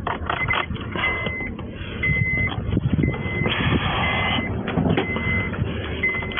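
Truck backup alarm beeping, a steady high tone about once a second, over a running engine and traffic noise. A brief rush of noise comes about three and a half seconds in.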